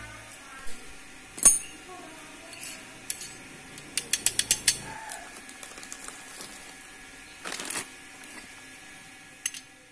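Metal clicks and ticks of a Vespa PTS four-speed gear cluster being turned and handled by hand, with one sharp click early and a quick run of about six clicks around four seconds in. A short rustle of plastic wrapping comes near the end.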